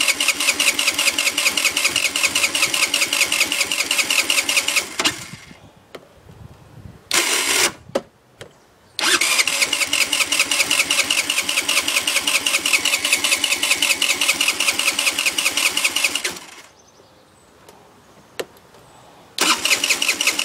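A 50cc scooter's electric starter cranking the engine in three long tries and one short blip, each with a fast, even chug as the engine turns over without ever catching. It is a no-start: the engine cranks but will not fire, even with a new plug, coil, CDI and carburettor.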